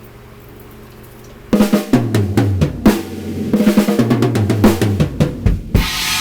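Acoustic drum kit played in a loose improvisation. After a low hum for about a second and a half, quick snare, tom and bass drum hits come in, and near the end a Paiste cymbal crash rings on.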